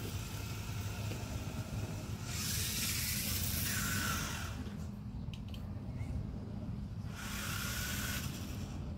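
Toy remote-control car's small electric motor and gears whirring in two runs of about two seconds each, the second starting about seven seconds in, each ending in a brief whine, over a low steady hum.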